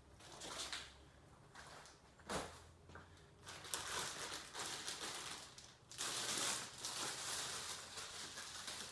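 Rustling and crinkling of packaging being handled as a cricket bat is taken out of its padded case, with irregular scrapes and a louder stretch of rustling about six seconds in.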